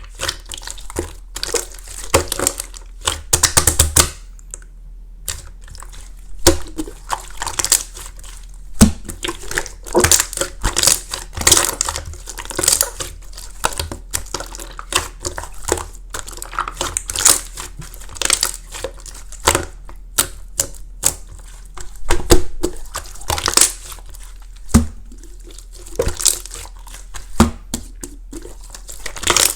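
Clear slime mixed with crunchy flakes being squeezed and pressed by hand, giving dense, irregular crackling crunches and sharp clicks.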